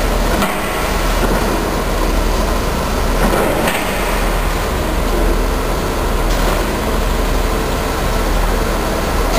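Diesel engines of tracked demolition excavators running steadily, a low rumble with a few brief knocks.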